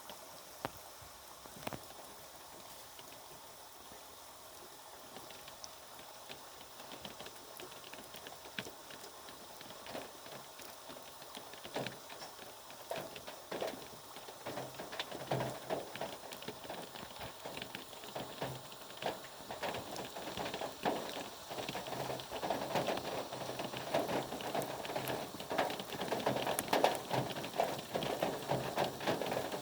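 Rain falling, with individual drops tapping on a surface; sparse at first, it grows denser and louder through the second half.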